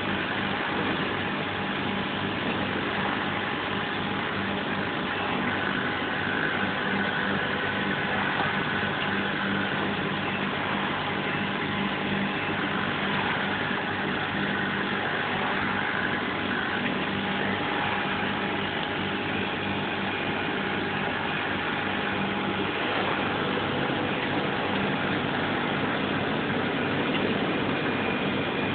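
A powered-up CO2 laser cutting machine running: a steady mechanical hum with a constant whirring noise.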